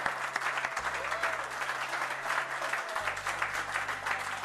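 A roomful of people applauding, many hands clapping steadily, with music playing underneath.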